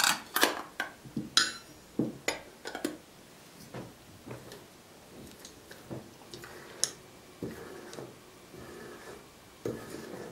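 Hand-operated canning seaming key closing a tin lid onto a glass jar. There are metal-on-glass clinks and knocks as the lid is set on and the seamer fitted, then a rasping scrape in short strokes as the seamer's roller is cranked round the lid rim.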